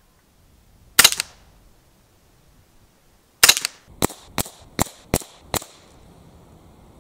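Moderated CZ Scorpion EVO 3 S1 .22 LR semi-automatic carbine firing RWS subsonic rounds. One shot comes about a second in, then six rapid shots about a third of a second apart, the action cycling each time without a stoppage.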